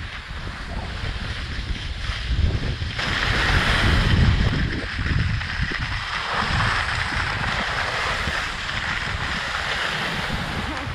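Wind noise buffeting the microphone of a downhill skier, over the steady hiss of skis sliding on packed snow, which gets louder about three seconds in.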